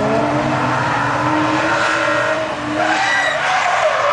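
Car drifting through a bend, its engine revving up and down while the tyres squeal, the squeal coming in from about halfway through.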